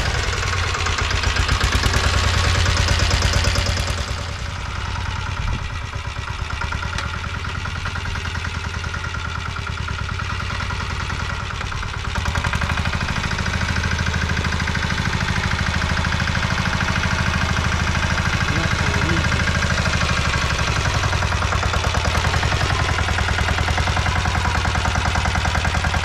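Engine of a walk-behind-style fodder reaper with a front cutter bar, running just after starting, with a rapid, even firing beat. From about twelve seconds in it runs louder and steady while the machine cuts green fodder.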